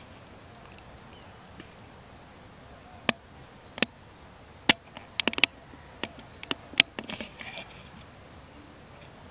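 A string of irregular sharp clicks and taps over a quiet background, with a few bunched close together a little past the middle.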